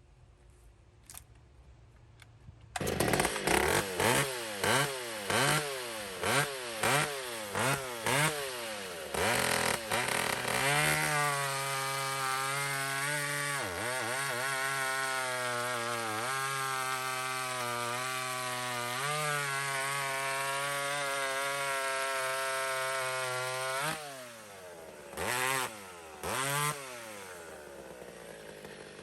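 Two-stroke chainsaw revving in about eight quick throttle blips after a couple of seconds of quiet. It then runs held at high revs for about thirteen seconds, its pitch sagging now and then as if bogging under load in a test cut with the freshly hand-filed chain. Near the end it drops back, with two short blips.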